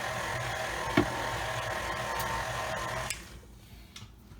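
Electric stand mixer running with a steady whine as it beats cake batter, with a single knock about a second in. The motor cuts off suddenly about three seconds in.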